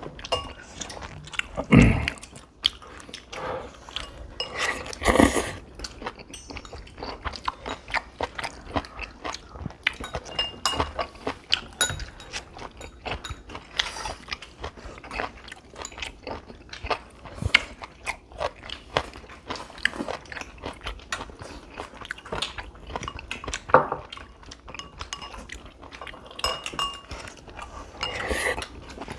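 Close-miked chewing and biting of a mouthful of rice cakes, beef and minari, with crisp crackles and a few louder bites. Light clinks of chopsticks on the plate come now and then.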